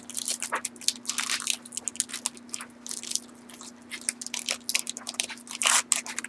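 Wrapper of a 2013 Panini Prestige football card pack crinkling as it is opened by hand, in quick irregular crackles that are loudest near the end, over a steady low hum.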